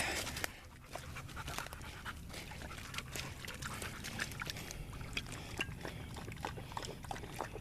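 A dog panting, with scattered light clicks and rustles.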